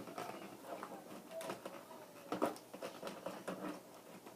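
Faint handling noises from a toy blaster's packaging being pulled and worked at: irregular rustles and scattered small clicks.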